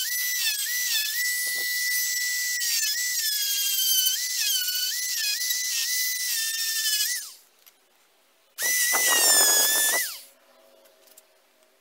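Handheld rotary tool with a sanding drum whining at high speed while sanding the edge of a wooden fidget spinner blank, its pitch dipping each time the drum bites into the wood. It winds down about seven seconds in, then runs again briefly with a rougher grinding sound and winds down about ten seconds in.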